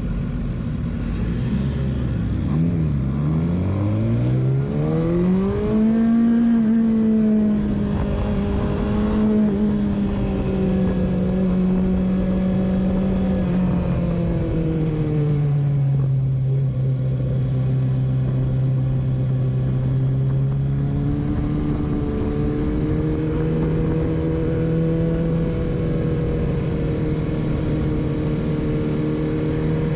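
A 2017 BMW S1000RR's inline-four engine with an Akrapovic exhaust pulls away from a standstill and then runs at an easy track pace. Its note dips, then climbs steadily over the first few seconds, holds, glides lower around fifteen seconds in and steps up a little after twenty seconds, with wind rush throughout.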